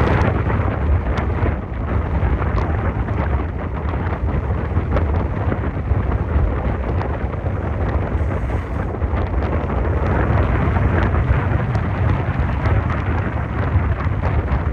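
Strong wind buffeting the microphone: a steady low rumble with scattered small ticks, such as rain or grit striking it.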